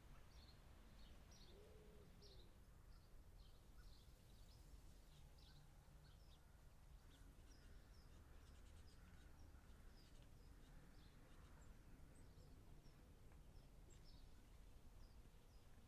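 Faint outdoor ambience: many short, high bird chirps over a low, steady rumble.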